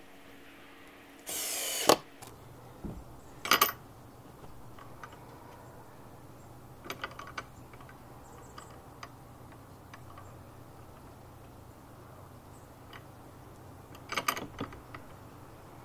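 A short burst from a cordless drill a little over a second in, ending in a sharp snap. After it, scattered metal clicks and rattles as a black steel gate latch is handled and fitted against a wooden gate post.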